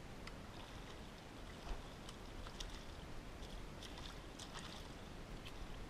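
Small water splashes and drips around a kayak's hull, from a fish at the surface beside the boat, coming as a scatter of short splashes that grow more frequent from about two seconds in.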